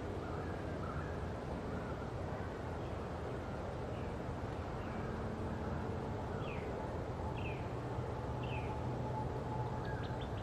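Distant diesel locomotives hauling a freight train, heard as a faint, steady low engine rumble. A bird gives several short, falling calls in the second half.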